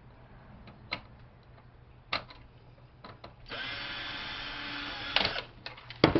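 Power drill with a Torx bit spinning a screw out of a printer for about two seconds, between sharp clicks and knocks of plastic and metal parts being handled; a loud knock comes near the end.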